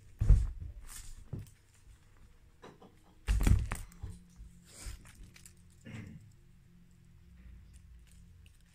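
Bengal cats pouncing and landing on carpet close to the camera: a series of dull thumps and scuffles. The two loudest come just after the start and at about three seconds.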